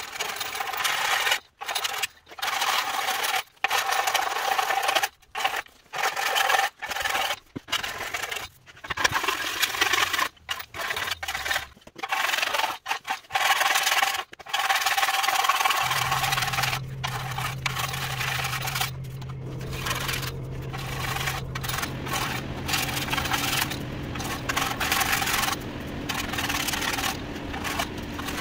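Repeated scraping strokes on metal, about one a second with short gaps between them, like hand work on a sheet-steel panel. About halfway through the strokes give way to continuous noise over a steady low hum.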